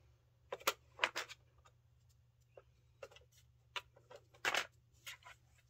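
A kitten pawing at a box-shaped toy coin bank: irregular taps, clicks and scratches of paw and claws on the box and its lid, the loudest cluster about four and a half seconds in.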